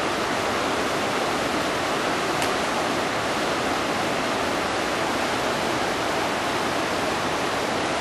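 Steady rush of a river running over rapids.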